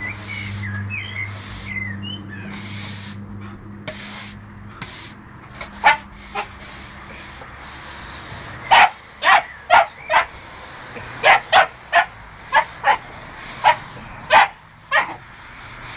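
Gordon Setter puppy barking in a rapid run of short, sharp yaps, about a dozen from around nine seconds in, as it fights a push broom. Before that the broom's bristles scrape across the paving stones in bursts, with a few small squeaks from the puppy.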